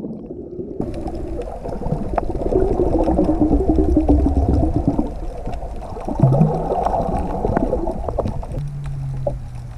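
Muffled underwater sound of the camera in the water: water movement and bubbles with scattered clicks, a wavering low tone through the middle and a short steady low hum near the end.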